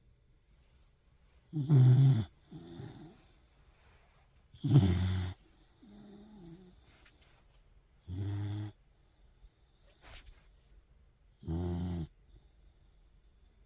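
A dog snoring in its sleep: four loud snores about three seconds apart, the first two each followed by a softer breath.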